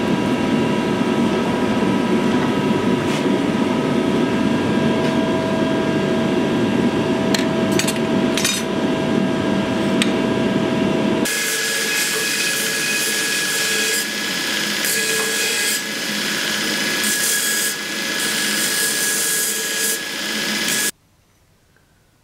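Hydraulic forging press running with a steady hum while it squeezes red-hot steel between its dies, with a few sharp clicks about eight seconds in. About halfway through it gives way to a belt grinder grinding steel, the grinding level dipping every couple of seconds, and it cuts off suddenly about a second before the end.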